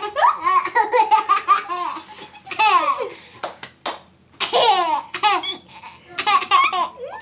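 A young boy laughing hard and high-pitched, in several bursts of rapid laughter with short pauses for breath between them.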